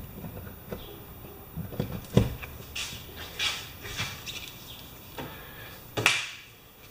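A heavy extension cord being handled and uncoiled: scattered knocks and short rubbing swishes, with the sharpest knock about two seconds in and another near the end.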